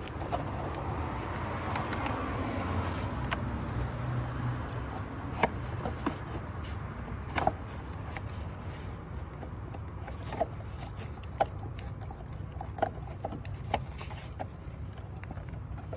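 Scattered light clicks, knocks and scrapes of an oil filter and its housing being worked back into place, over a steady low hum.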